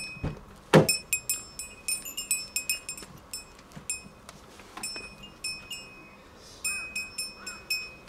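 A small metal bell jingling in many quick, irregular shakes, each ringing at the same high pitches, with a dull thump about a second in.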